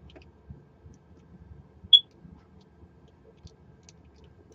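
Small scattered clicks of a Master Lock four-digit combination padlock's number wheels being turned under tension while feeling for each wheel's gate, with one louder, sharper click about two seconds in.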